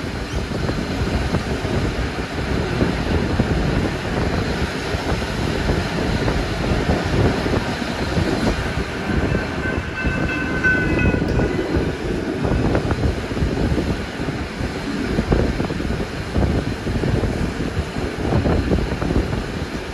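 Passenger carriage running on the rails, with a steady rumble and clatter of wheels on track. A faint high tone comes and goes around the middle.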